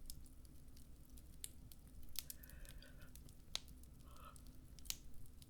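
Faint bonfire crackling: irregular sharp pops and snaps over a low steady rumble.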